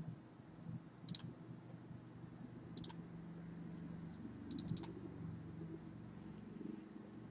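Sharp clicks of a computer being operated: one about a second in, one near three seconds, and a quick run of four around four and a half seconds, over a faint steady low hum.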